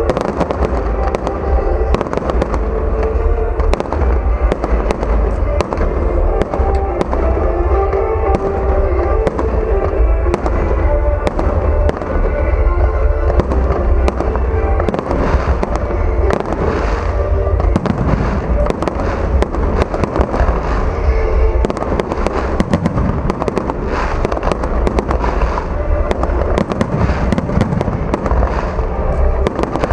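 Fireworks going off in quick succession, many bangs and crackles, thickening in the second half, with music playing underneath.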